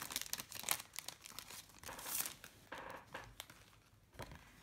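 Clear plastic cellophane sleeve crinkling as it is opened and pulled off a pack of cards, in irregular rustles that die down in the last second.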